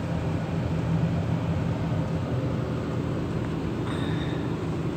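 Crane's engine idling, a steady low mechanical hum, with a brief faint high tone about four seconds in.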